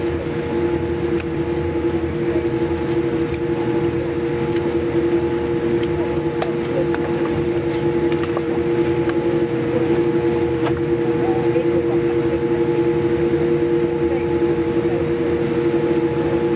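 Cabin noise of a Boeing 787-8 taxiing after landing: a steady hum with several held tones over a broad rushing noise, with a few faint clicks.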